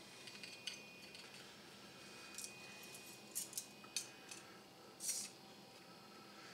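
Faint, scattered metallic clinks and scrapes of small metal radial rods being screwed by hand into a discone antenna's hub.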